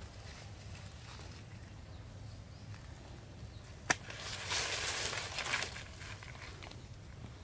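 Rustling of dry leaves for about two seconds as a person rolls over onto his side on a leaf-strewn rock, just after a single sharp click about four seconds in, over a low steady rumble.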